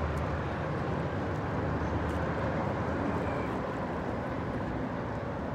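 Steady low rumble of distant motor traffic, even and unbroken.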